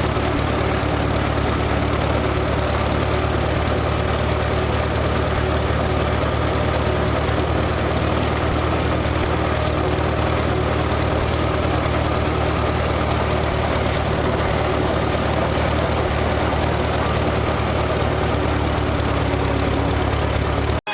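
Tractor engine running steadily at an even, unchanging speed with a low hum.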